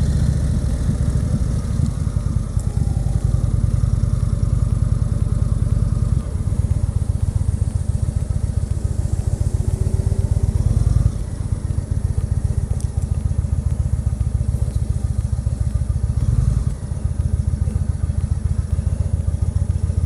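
2014 Indian Chief Vintage's air-cooled Thunder Stroke 111 V-twin running at low speed, its firing pulses steady and even. The engine note steps down a few times, at about 6, 11 and 16 seconds, as the bike is throttled back and slowed.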